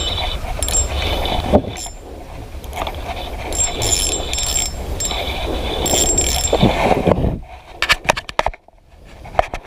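Spinning reel ratcheting and whirring as a hooked fish is played on a bent rod, over a steady low rumble. Near the end the rumble drops away, leaving a run of sharp separate clicks.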